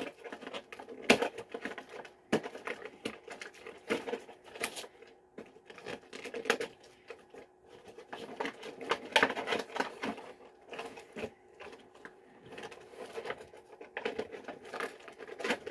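Irregular clicks, taps and crinkles of small hot sauce bottles and their packaging being handled as the bottles are worked out of the box, over a faint steady hum.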